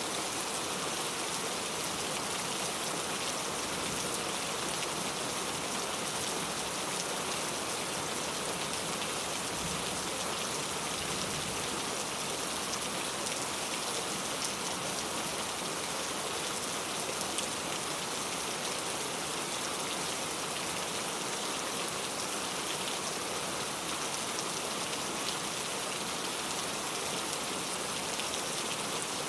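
Steady rain falling, a dense even hiss of raindrops with fine patter on a surface.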